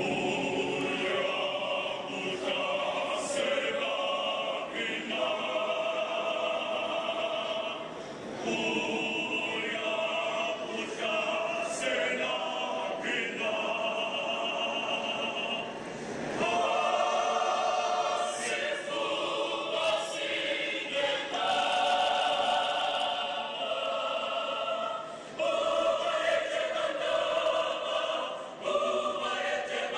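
Mixed choir of young female and male voices singing in parts, held chords sung in phrases with brief breaks between them.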